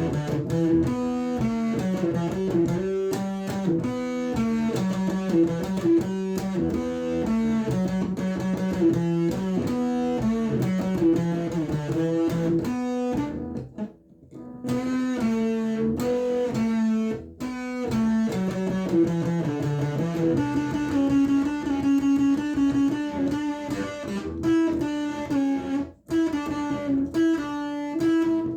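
Electric guitar through a Behringer Super Fuzz pedal, improvising a solo line of single sustained notes that step up and down in pitch, with a few short pauses. The amplifier is picked up from a distance.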